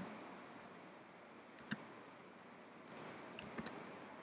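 Faint keystrokes on a computer keyboard: a few scattered clicks, a pair about one and a half seconds in and a small cluster around three seconds in.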